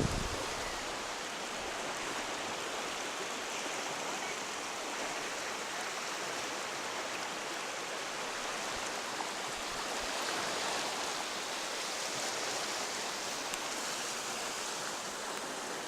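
Swollen river in flood, its fast brown water rushing with a steady, even roar of turbulence.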